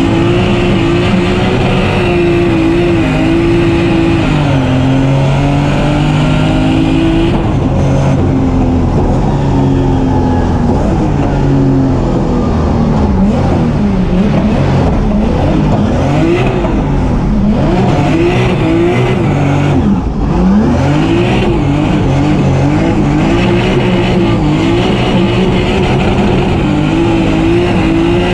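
Turbocharged 650 hp BMW M3 drift car's engine, heard from inside the cabin, revving up and down over and over through gear changes. Its pitch dips and climbs in quick arches midway.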